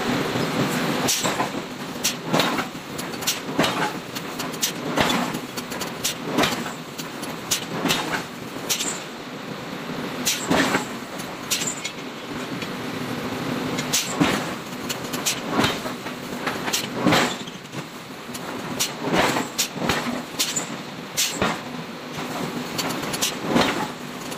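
Hammer blows on red-hot iron being forged round, sharp strikes at an uneven pace of roughly one a second, over a steady mechanical drone.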